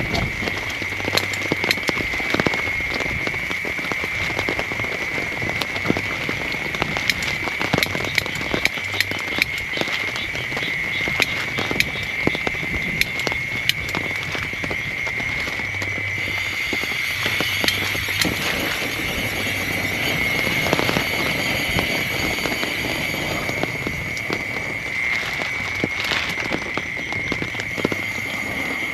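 Heavy rain falling, with many sharp drop hits close by, over a steady high-pitched drone; the hiss of the rain grows a little fuller about two-thirds of the way in.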